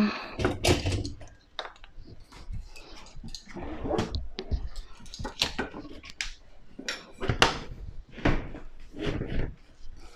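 A string of irregular knocks, clicks and scrapes from hands working on a dishwasher as it is put back in place.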